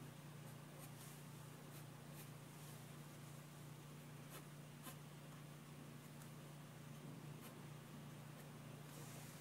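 Pencil sketching on paper: faint, irregular short scratching strokes over a low steady hum.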